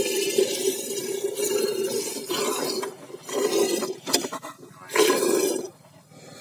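Jets of milk squirting from a buffalo's teats into a steel bucket partly filled with milk, a frothy hiss in fast strokes. About halfway through it breaks into separate squirts, then stops near the end.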